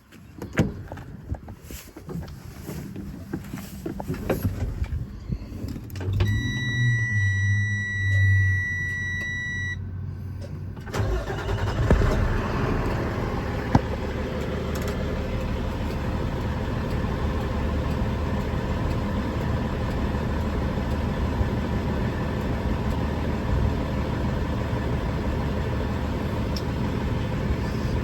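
Miller Bobcat 250 diesel welder-generator being started. After a few knocks, a steady high beep sounds for about four seconds while the engine cranks. The diesel catches about eleven seconds in and then runs steadily.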